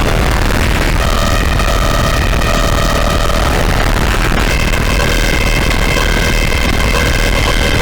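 Synthesizer played through the Caustic FX Snowstorm distortion pedal: a harsh, noise-heavy distorted drone with blown-out bass, like a dying speaker. Held notes sit over the noise and change about a second in and again about halfway.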